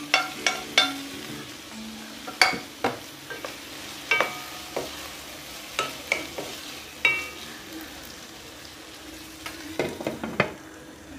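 Diced tomatoes sizzling in oil in a granite-coated wok while a wooden spatula stirs them, with a dozen or so sharp knocks against the pan, some ringing briefly. Near the end comes a quick cluster of clatter as a glass lid is set on the pan.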